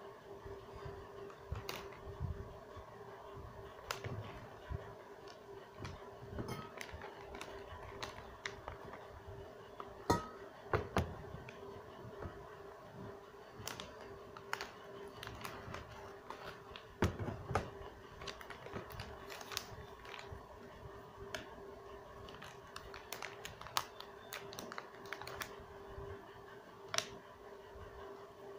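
Crinkling and small clicks of foil-wrapped Kisses chocolates being handled, scattered irregularly with a few louder crackles, over a steady low hum.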